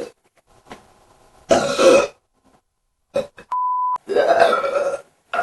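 Two human burps: a short, loud one about a second and a half in, then a longer one of about a second near the end, with a short steady beep between them.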